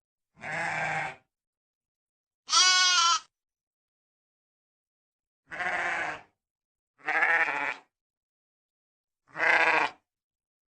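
Sheep bleating: five separate calls of under a second each, spaced one to three seconds apart with silence between, the second call the loudest.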